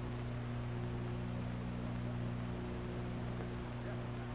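Steady low mains hum with a layer of hiss, the background noise of an old 1960s film soundtrack.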